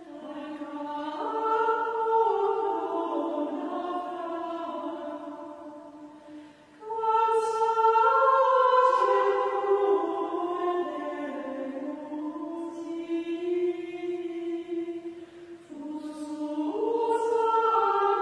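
Choir of Benedictine nuns singing Gregorian chant, women's voices in unison moving stepwise through the melody. There are short breaths between phrases about six and fifteen seconds in.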